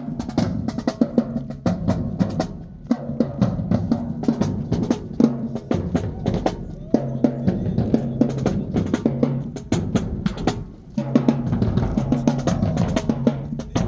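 Marching band drumline playing a cadence: rapid snare drum strikes and rolls over bass drums, with a short break about eleven seconds in.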